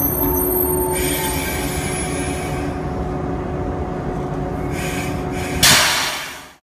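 The Zipangu joyful train, a set of KiHa 48 diesel railcars, rolling slowly along the platform, its diesel engines running steadily over the rumble of the wheels on the rails. Near the end a loud hiss comes in, and then the sound cuts off abruptly.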